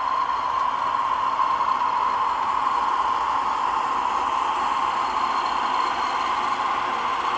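Sound decoders in HO-scale Athearn Genesis Dash 9 model diesel locomotives playing a steady engine running sound through their small onboard speakers as the locomotives roll by.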